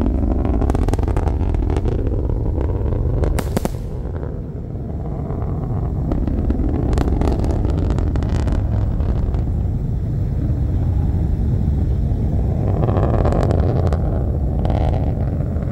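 Sonic booms and rumble from the descending Falcon Heavy side boosters. A sudden thud starts it, a sharp crack comes about three and a half seconds in, and a deep rolling rumble runs throughout with further crackles.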